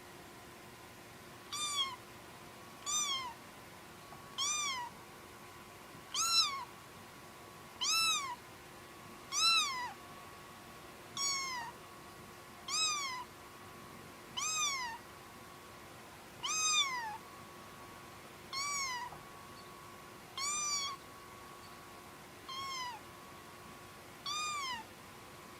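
Domestic cat meowing over and over, about fourteen short meows roughly every one and a half to two seconds, each rising then falling in pitch.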